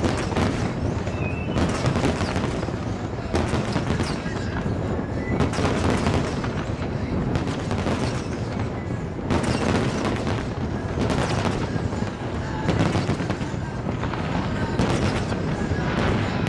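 Aerial fireworks bursting nonstop: dense, overlapping bangs and booms with rapid crackling, loud throughout.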